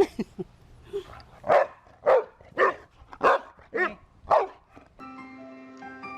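A dog barking about six times in a steady rhythm, roughly two barks a second; background music begins near the end.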